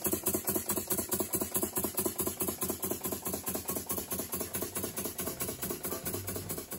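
Märklin 4122/11 vertical live-steam toy engine running steadily, with a fast, even beat.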